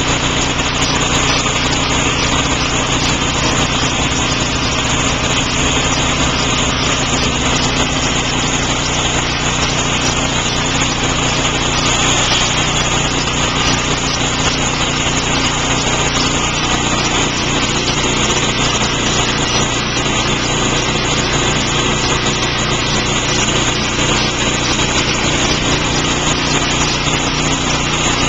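Machinery for removing acid-etched graffiti from window glass running steadily: a constant, unchanging machine drone.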